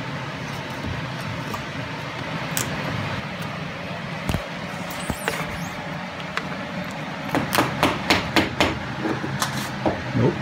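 Wooden mallet striking a chisel to chop out waste wood from a dado in a wooden slab. There is one knock a few seconds in, then a quick run of about seven sharp strikes near the end.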